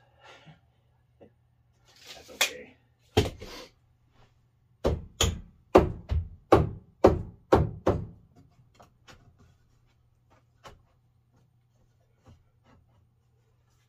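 Sharp knocks on wood: one about three seconds in, then a quick run of about seven, two or three a second.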